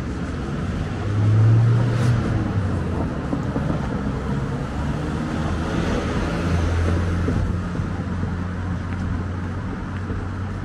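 Urban road traffic: engines running low and the tyre noise of passing vehicles, with a low engine hum loudest about a second and a half in and a car swelling past around the middle before fading.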